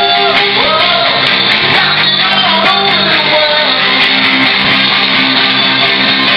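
Live band playing a loud rock song, guitar with a singer.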